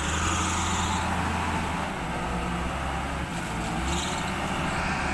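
Forklift engine running steadily with a low hum.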